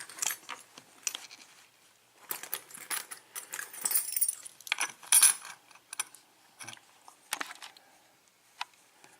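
Small metal lock parts from a gutted Kwikset pin-tumbler lock clicking and rattling as they are handled: a scatter of light metallic clicks, busiest in the middle.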